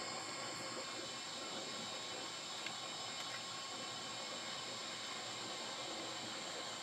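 Steady rainforest ambience by a creek: a constant rush of water under a high, even insect drone, with one faint click near the middle.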